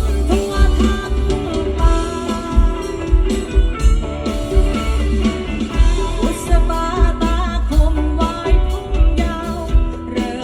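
A song with singing, guitar and a heavy bass beat, played through a car audio system.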